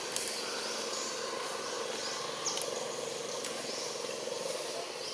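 Steady outdoor ambience: a continuous buzzing drone with a fine rapid pulse, with a few faint high chirps and soft clicks over it.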